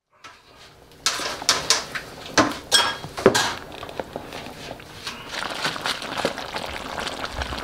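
A cooking utensil knocking and scraping in a pan of stew: several sharp clinks in the first few seconds, some with a short metallic ring, then a steady hiss of the food cooking that grows a little louder.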